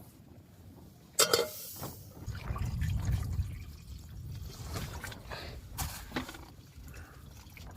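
Water pouring and sloshing as meat is roughly rinsed in a pot, with a sharp clatter about a second in and smaller knocks later.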